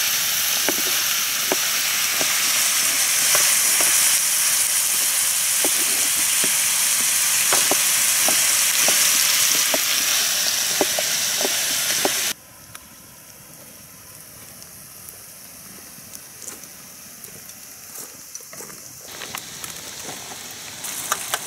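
Onion and carrot sizzling in a frying pan on a camping gas stove, with a knife tapping through tomato on a wooden cutting board about every half second. About twelve seconds in the sizzle cuts off abruptly, leaving only faint soft clicks.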